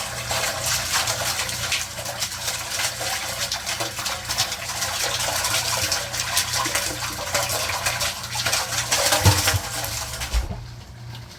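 Water splashing and churning loudly and irregularly, stopping abruptly near the end.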